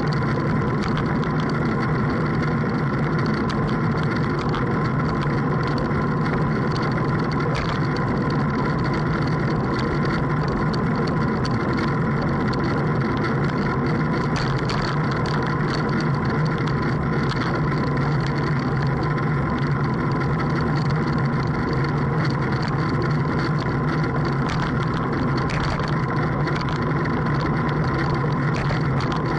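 Boat engine running steadily at a constant speed, its pitch unchanging throughout.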